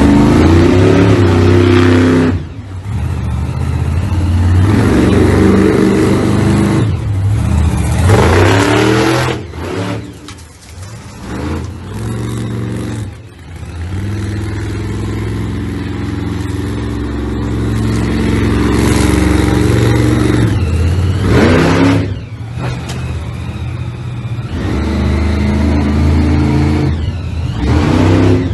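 Monster truck engines revving hard under load, with several sharp rising revs that fall back between bursts.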